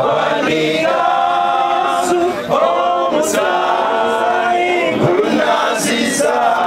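A group of voices singing together in a choir, with long held notes that move in chords.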